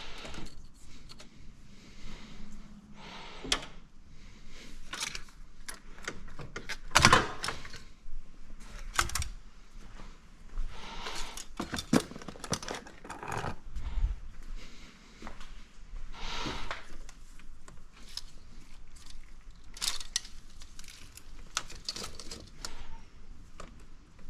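Metal hand tools and parts clinking, clicking and knocking irregularly, with the loudest knock about seven seconds in.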